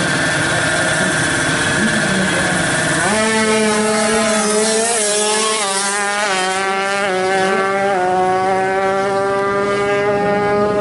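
Two-stroke Kawasaki Ninja drag bike engine held at high revs, then launching about three seconds in. It accelerates hard, the pitch climbing through the gears with a short dip at each shift.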